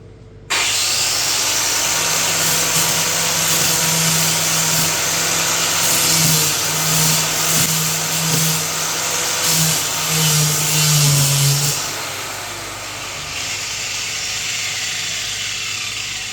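Angle grinder fitted with a sanding disc, switched on and running while it sands down a lump in a floor. It starts abruptly about half a second in, eases off after about twelve seconds, and winds down near the end.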